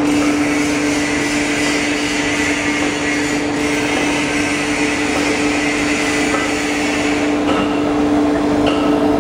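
Foam-cutting machine for slicing memory foam into thin sheets, running steadily: a constant motor hum with a rushing hiss over it.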